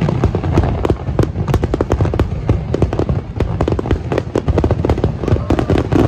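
Fireworks display bursting: dense crackling, many pops a second, over a low rumble.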